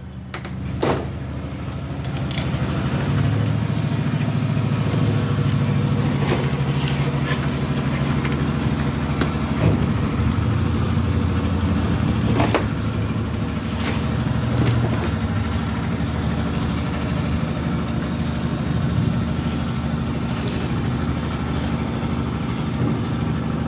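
A steady low rumble, like a passing motor vehicle, that swells and fades a few times, with scattered light clicks and taps over it.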